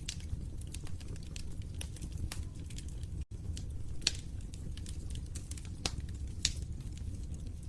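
Wood fire crackling: a steady low rumble of flames with scattered sharp pops and snaps. A momentary dropout in the sound comes a little over three seconds in.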